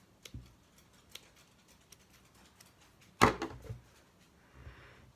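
Handling noises: a few light taps and clicks, then one sharp knock a little past three seconds in.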